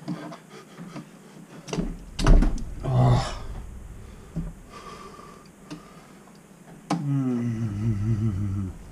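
Metal pliers knocking and clattering against a stuck faucet cartridge stem and the faucet body as the cartridge is twisted and pulled to get it out. The loudest clunk comes about two seconds in, and near the end there is a low, wavering sound lasting almost two seconds.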